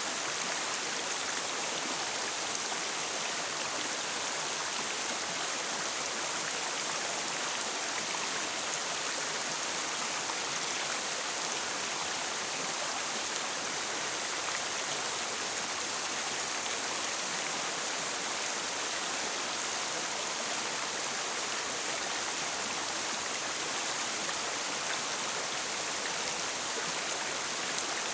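River water flowing steadily, an even rushing noise that stays the same throughout.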